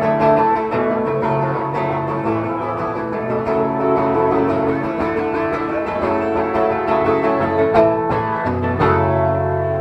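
A live band playing guitar-led music, with held notes and chords changing every second or so.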